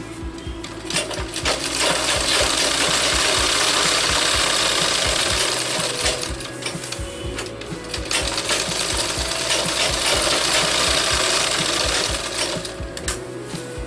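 Industrial sewing machine stitching a seam in two runs of about four seconds each, the first starting about two seconds in and the second about eight seconds in, with scattered clicks between the runs.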